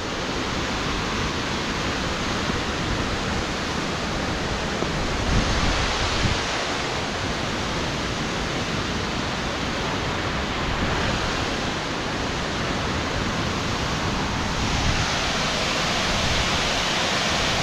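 Steady rush of Narada Falls heard close up, a continuous wash of falling water with a low rumble underneath. It swells a little about five seconds in and again near the end.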